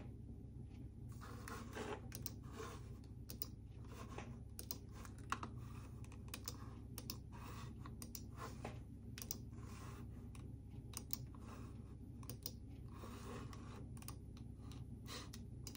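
Faint typing on a computer keyboard: irregular light key clicks over a low steady hum.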